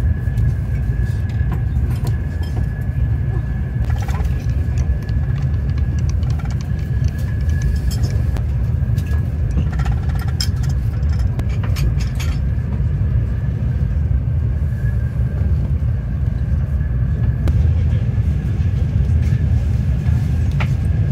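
Cabin noise inside a Sapsan high-speed electric train running at speed: a steady low rumble with a faint, steady high whine. A few light clicks and knocks come through the middle of it.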